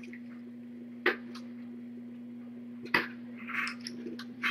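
Two sharp clicks of a DSLR camera's shutter as photos are taken, about a second in and again about three seconds in, followed by a brief soft rustle. A steady low electrical hum runs underneath.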